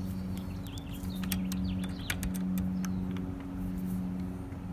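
Scattered small clicks and taps of a tool on metal as the set screws on a hand-dryer push-button hex fitting are tightened, over a steady low hum.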